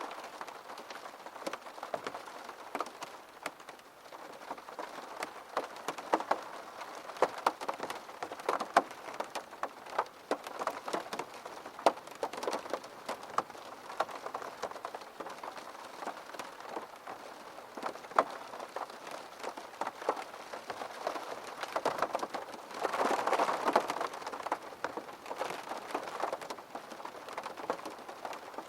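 Steady rain, with many individual drops tapping sharply on a surface over the rain's hiss. It swells louder for a second or two a few seconds before the end.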